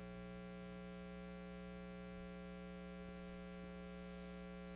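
Steady electrical mains hum with many evenly spaced overtones, unchanging throughout, with a few faint ticks about three seconds in.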